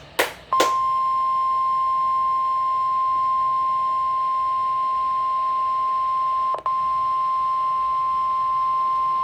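NOAA Weather Radio warning alarm tone, a single steady high tone of about 1050 Hz, heard through a Midland WR120 weather radio's speaker during the Required Weekly Test. A few short crackles come just before it starts, and it drops out briefly with a click about six and a half seconds in.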